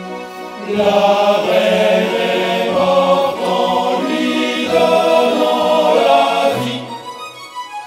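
A musical-theatre chorus singing together over instrumental accompaniment, with a held low note underneath; the music thins out briefly about seven seconds in.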